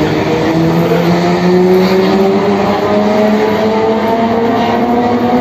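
Electric kitchen blender motor running steadily as it grinds soaked soybeans with water. Its whine rises slowly in pitch over a few seconds.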